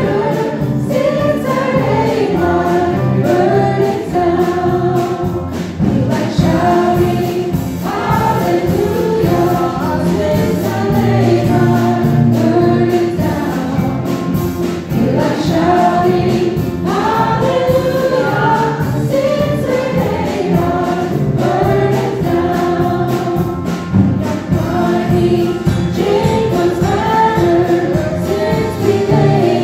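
Small church band playing a song, with several voices singing together over electric guitars and bass guitar.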